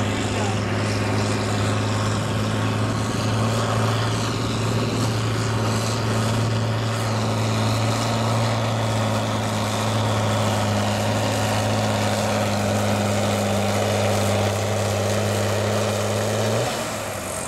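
John Deere farm tractor's diesel engine running steadily at full load as it drags a weight-transfer pulling sled, with a deep, even drone. About a second before the end the drone drops off as the throttle is cut.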